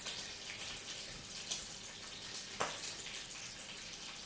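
Potato and apple chunks being stirred with a spoon in a pot of hot water: a faint, steady wet hiss with small ticks, and one knock of the spoon against the pot about two and a half seconds in.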